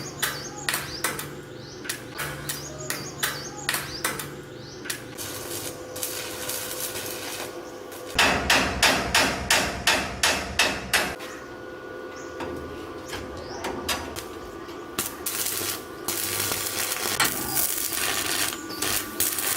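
Repeated hammer blows during machine repair, about two a second, with a louder, faster run of blows about eight seconds in.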